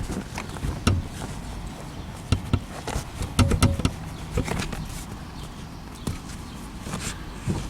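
Irregular knocks and thumps as a Mercedes W124 rear seat cushion is pushed and pressed down into its mounts, with a cluster of knocks about three and a half seconds in.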